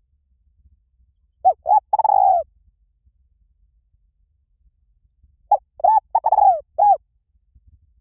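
Spotted dove cooing: two phrases about four seconds apart, each a run of short coos with one longer coo that falls in pitch.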